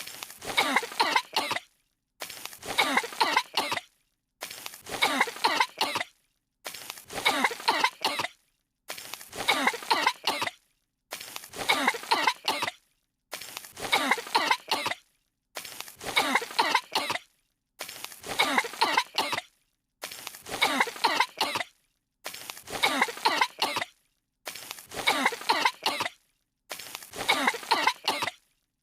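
Two cartoon girls' voices coughing from dust, a fit of several hacking coughs. The same short coughing clip repeats about every two seconds, with a brief silence between repeats.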